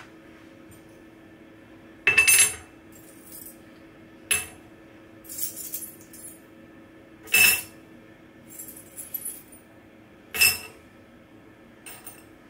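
Pieces of scrap silver dropped by hand into a crucible, clinking in seven short handfuls, the loudest about two seconds in, near the middle and about ten seconds in.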